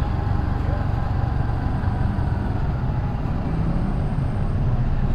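Honda Revo FI single-cylinder motorcycle running steadily on the move, with a low, gusty rumble of wind on the helmet camera's microphone.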